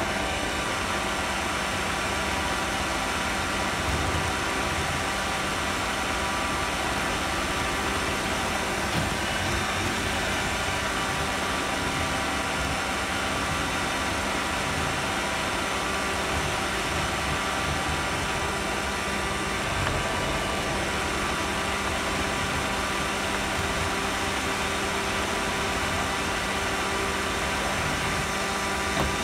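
Roomba robot vacuum running, heard from a phone riding on top of it: a steady whirr of its motors, suction fan and brushes.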